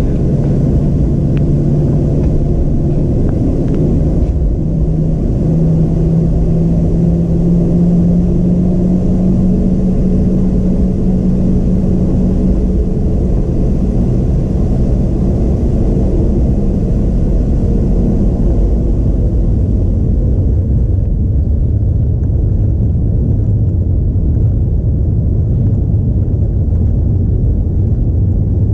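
Cabin noise over the wing of a Boeing 737-700 taxiing, its CFM56-7B turbofans running with a steady low rumble. A humming tone edges up in pitch over the first ten seconds, then fades, and the low rumble grows stronger in the last third.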